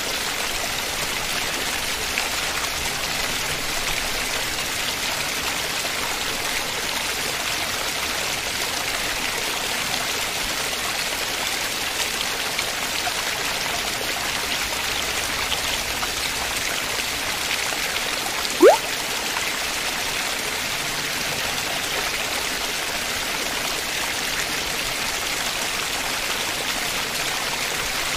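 Steady rushing of a waterfall spilling and splashing over rock. About two-thirds of the way through, one short rising whistle cuts in briefly.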